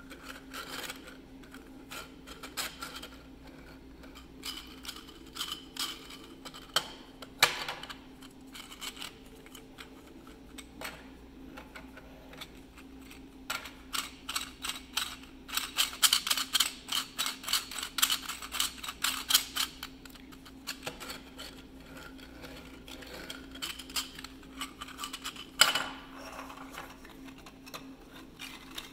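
3D-printed PLA spherical roller bearing being turned and rocked by hand: plastic rollers and races clicking and rattling irregularly, with a dense run of rapid clicks in the middle. A couple of louder single knocks stand out, one near the end, over a faint steady hum.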